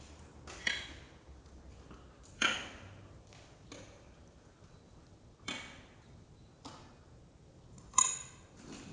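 Sharp metallic clicks and clinks from wheelchair frames and parts being handled and knocked together while getting ready to transfer from one wheelchair to the other. About six separate knocks, some with a brief ring, the loudest near the end.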